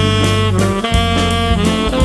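Background music: jazz with saxophone or brass playing held notes over a steady bass.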